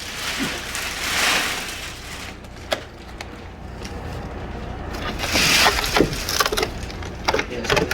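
Large cardboard TV box being handled and pulled about: two long rasping scrapes, with several sharp cracks of the cardboard toward the end.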